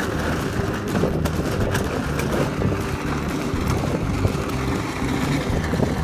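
Hard plastic toy wheels of a ride-on train and a plasma car rolling over asphalt: a steady rough rumble with small clicks and rattles.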